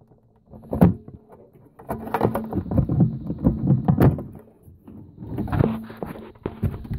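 Wiring loom connectors being pulled off a JPM Impact fruit machine motherboard by hand: a run of irregular plastic clicks, knocks and rattles, busiest in the middle.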